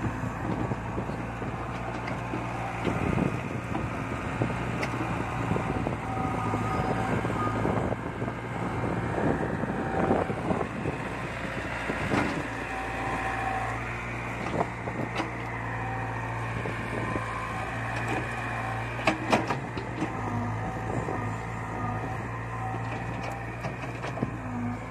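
Caterpillar tracked hydraulic excavator's diesel engine running steadily while it digs, with short hydraulic whines coming and going as the boom and bucket move. A few sharp knocks, two close together about nineteen seconds in.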